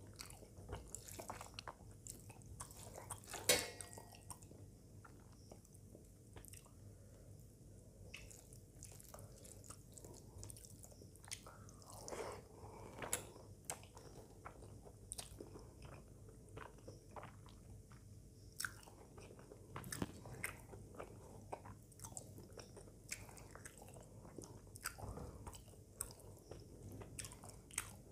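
Faint, close-up sounds of eating rice and egg curry by hand: chewing, with soft clicks and ticks of fingers mixing rice on a metal plate. One sharper, louder click comes about three and a half seconds in.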